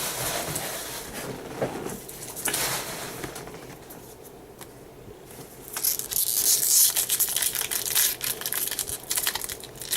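Foil wrapper of a trading-card pack crinkling and tearing as it is opened, with cards being handled. It is quieter in the middle, then crackles louder from about six seconds in.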